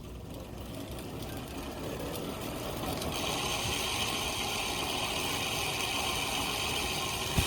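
Sagmit Racing Pro 2.0 rear hub with a 24-tooth ratchet freehub, buzzing as the wheel freewheels: a dense run of rapid clicks that grows louder and turns much brighter about three seconds in.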